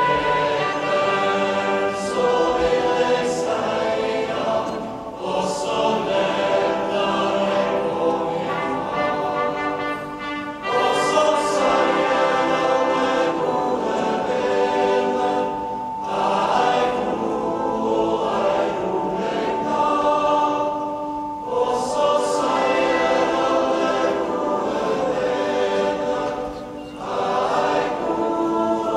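Choral music: many voices singing held chords in long phrases of about five seconds, each ending in a brief dip before the next.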